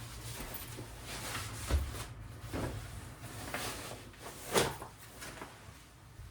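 Handling noises at a work bench: a few short knocks and rustles, the loudest a little past the middle, over a low steady hum.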